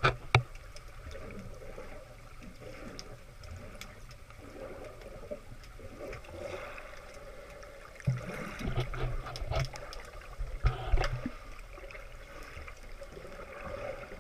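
Water heard through a camera held at and just under the surface while snorkelling: muffled sloshing and gurgling, with scattered sharp clicks and low thumps that are busiest about eight to eleven seconds in.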